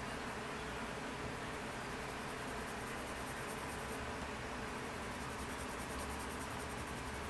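Colored pencil shading on drawing paper: a steady, dry scratching hiss of quick back-and-forth strokes.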